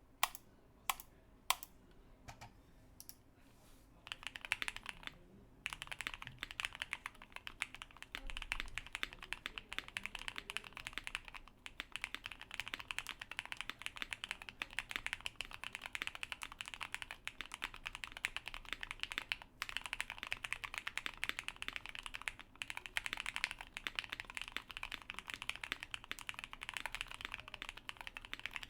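Mechanical keyboard with Gateron Yellow linear switches being typed on: a few single keystrokes at first, then from about four seconds in, fast continuous typing with a few brief pauses.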